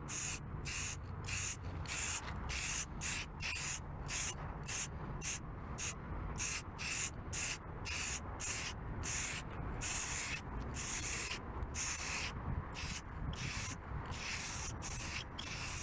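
Aerosol spray can spraying a light coat onto a plastic car lens in short, quick bursts, about two a second, each a sharp hiss. A low wind rumble runs underneath.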